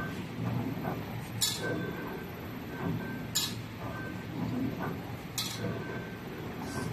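Knife-type filter paper pleating machine running slowly, with a low steady mechanical hum and a short, sharp clink about every two seconds as it works through its pleating strokes.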